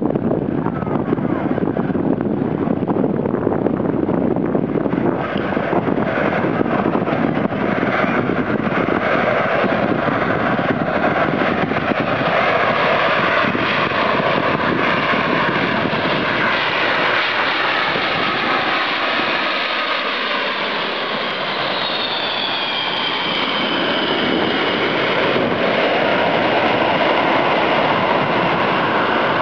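Boeing 747's four jet engines on landing approach, passing low overhead: a loud, steady rush with a turbine whine that slides down in pitch in the last third.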